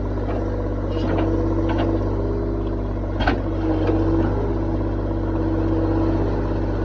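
Excavator engine running steadily, with a whine that swells and fades several times and a few short knocks, the sharpest about three seconds in.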